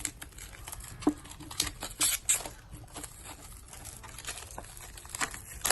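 Hands handling an album's packaging: scattered small clicks and taps with a few short rustles of plastic and paper, the loudest about two seconds in.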